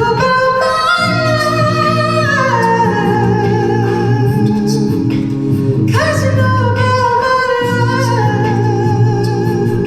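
A cappella vocal group singing live: a lead voice holds long notes that slide down in pitch over sustained lower harmonies, in two phrases, the second starting about six seconds in.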